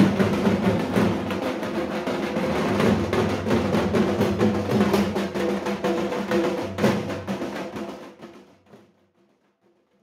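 Dhak drums played by a group of dhakis in a fast, dense drumming pattern, fading out about eight seconds in.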